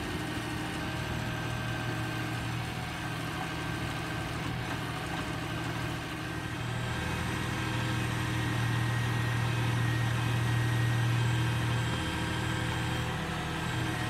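Diesel engine of a tractor-mounted backhoe loader running steadily, louder from about seven seconds in.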